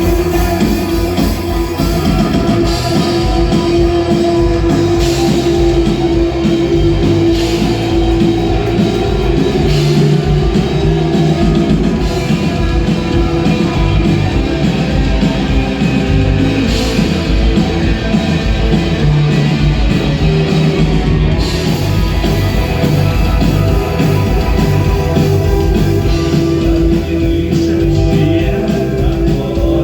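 A rock band playing live, with electric guitar, drum kit and a singer, in a steady, loud song.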